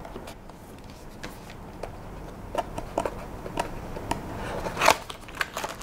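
Hands handling cardboard packaging and the projector on a table: scattered light taps and knocks, with one louder knock about five seconds in.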